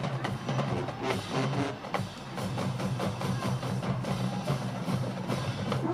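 College marching band drumline playing a drum cadence: rapid snare and bass drum strikes over a steady low sound.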